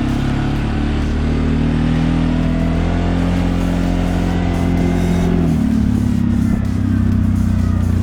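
CFMoto 520L ATV's single-cylinder engine running under way, with a steady drone that drops in pitch about five and a half seconds in as the revs change.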